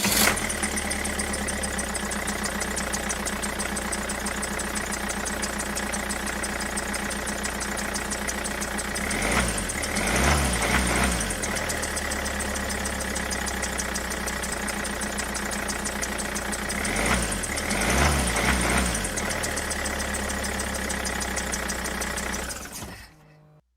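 A motor running steadily with a fast, even pulse. It grows louder twice for a couple of seconds, then stops shortly before the end.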